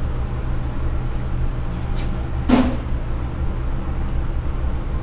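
A steady low hum, with a single sharp knock about halfway through and a fainter click just before it.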